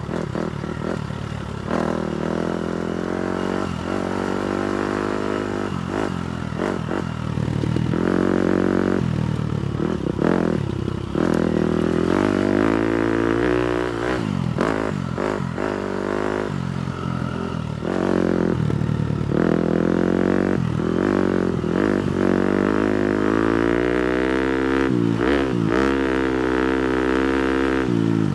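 Four-stroke single-cylinder 250cc motocross bike being ridden off-road, its engine revving up and falling back over and over as the throttle is worked and gears change.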